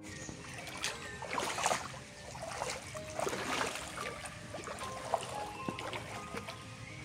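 Footsteps wading through shallow floodwater over grass, the water sloshing and splashing irregularly with each step.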